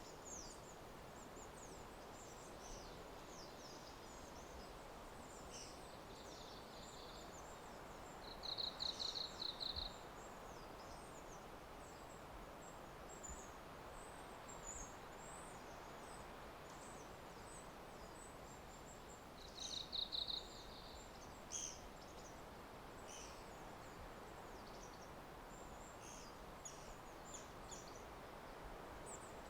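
Forest ambience: a steady soft hiss of background noise with many small birds giving short, high chirps. A rapid high trill, the loudest sound, comes faintly about six seconds in, then louder briefly about nine seconds in and again about twenty seconds in.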